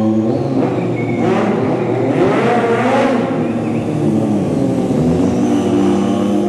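Stunt sport motorcycle's engine revving as it is ridden, the revs rising and falling in waves for several seconds before settling near the end.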